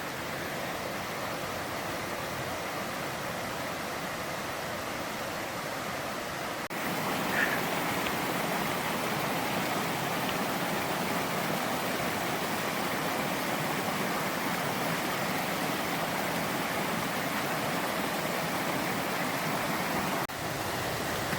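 Mountain stream rushing: a steady wash of flowing water, a little louder after a cut about seven seconds in.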